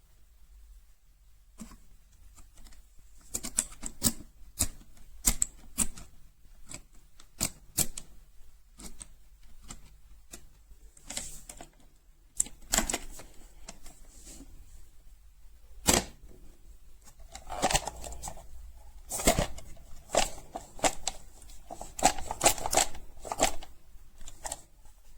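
Irregular sharp clicks and knocks, some in quick clusters, from a hard plastic portable lock box being handled.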